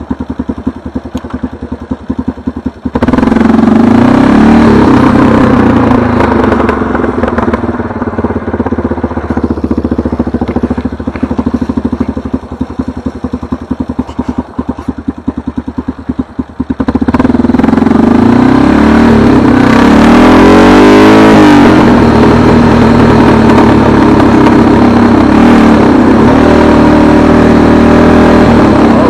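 A motor engine running, its pitch rising and falling as it speeds up and slows down. It gets louder about three seconds in, eases off in the middle and is loud again for the second half.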